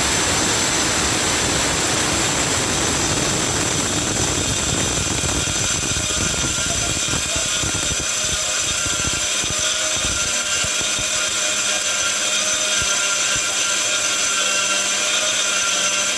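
Electric coffee grinder running steadily at full speed, grinding coffee beans for Arabic coffee (gahwa). About halfway through, the grinding gets smoother and a steady low hum comes through.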